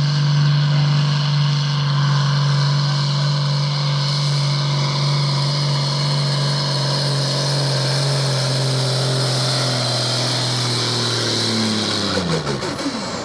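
John Deere farm tractor's diesel engine running hard at a steady, high speed while pulling a weight-transfer sled under full load. Near the end its pitch falls away sharply as the engine slows at the end of the pull.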